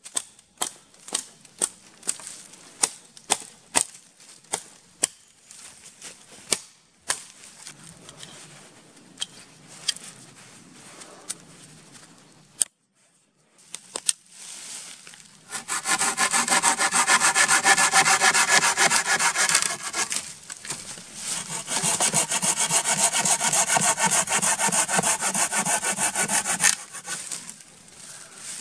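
Hatchet chopping into a thin green sapling, a sharp knock about every half second. Then a folding pruning saw cuts through the small trunk in fast, even strokes, in two long loud stretches with a short pause between.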